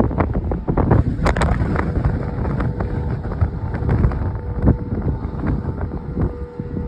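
Strong storm wind buffeting the microphone in gusts, with crackles. Under it, an outdoor tornado warning siren sounds faintly as a steady tone.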